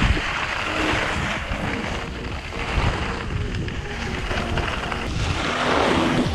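Wind rushing over an action camera's microphone while skiing downhill, with skis hissing over packed snow; the hiss swells at the start and again near the end as the skier turns.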